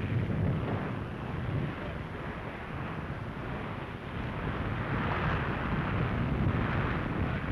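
A loud, steady rushing roar of noise on an old newsreel soundtrack, swelling a little after the middle, with no narration over it.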